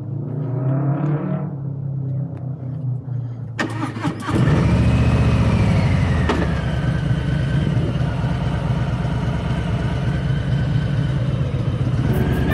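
Motorcycle engine starting about four seconds in, then running steadily as the bike pulls away.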